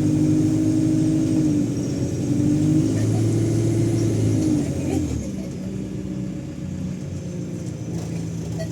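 ADL Enviro200 bus engine pulling steadily with a faint high turbo whine above it; about five seconds in the engine note drops lower and quietens as the bus eases off.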